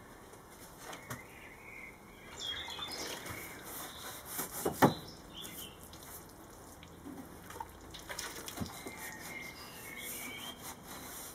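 A wide brush swabbing hot water onto thin plywood sheets: wet swishing strokes and splashing, with a single sharp knock about halfway through. Birds chirp in the background.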